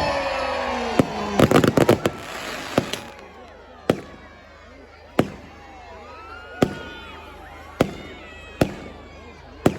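Fireworks going off: a quick run of crackling bangs about a second and a half in, then single sharp bangs every second or so.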